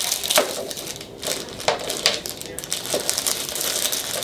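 Packaging crinkling and crackling in the hands as a small makeup brush is unwrapped, with several sharper crackles along the way.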